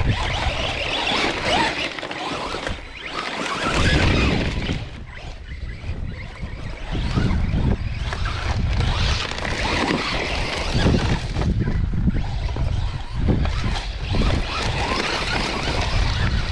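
Arrma Senton 3S radio-controlled truck driving in sand, under heavy wind buffeting on the microphone that swells and dips every second or two.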